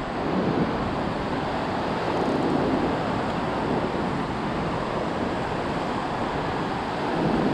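Ocean surf washing steadily onto a flat sand beach, with wind rushing over the microphone.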